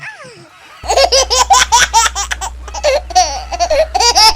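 High-pitched, childlike laughter: a quick run of short ha-ha notes that starts about a second in, after a single falling vocal glide. A low steady hum comes in with the laughter.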